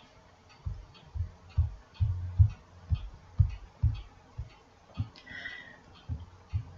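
Soft low thumps, irregular at about two a second, with faint ticks over them and a brief faint tone about five seconds in.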